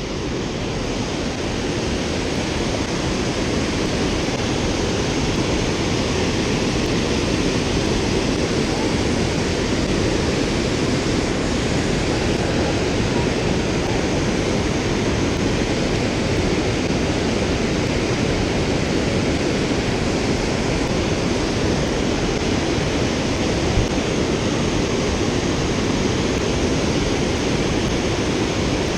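Steady rush of a low river waterfall, whitewater pouring over a wide rock ledge close by.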